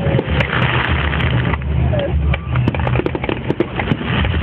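Aerial fireworks crackling and popping, the sharp cracks coming thick and fast from about halfway through, over a steady low rumble.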